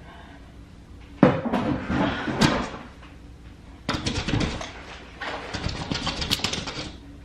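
Off-camera clattering and rustling of things being handled, in three bursts: one about a second in, a short one about four seconds in, and a longer one of rapid clicks and rattles from about five seconds in.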